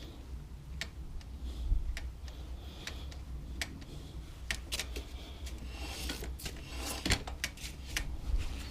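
Sharp clicks and light clatter from hand work on the brake-bleeding gear, about one a second, with a denser cluster of clicks and a short rustle about six to seven seconds in, over a low steady hum.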